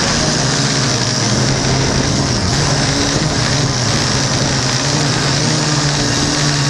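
Syma X8C quadcopter's four brushed electric motors and propellers running steadily, heard up close from the drone's own camera. The whine steps slightly up and down in pitch as the throttle changes.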